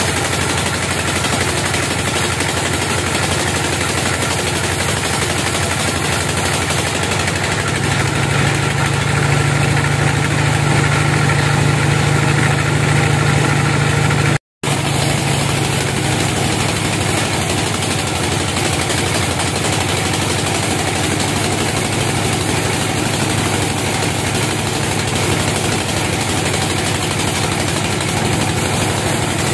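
Large band sawmill running and cutting through a teak log: a steady loud mechanical drone from the mill with the blade's hiss in the wood. A low hum swells for several seconds before the sound drops out for an instant near the middle, then resumes steadily.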